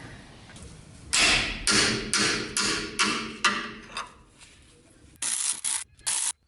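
Tool work on the rear brake caliper bolts: a run of about six quick strokes, roughly two a second, then two short abrupt bursts near the end.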